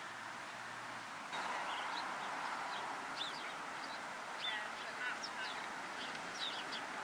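Outdoor ambience: a steady hiss that grows louder about a second in, with short, high bird chirps scattered through it.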